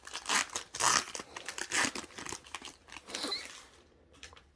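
A Yu-Gi-Oh booster pack's foil wrapper is torn open and crinkled by hand, in a run of rustling rips that dies away a little before four seconds in.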